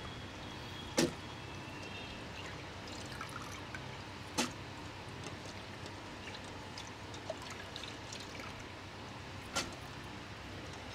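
Soaked rice and water being poured into a mixer-grinder jar, a faint steady pouring, with three sharp knocks about one, four and a half, and nine and a half seconds in.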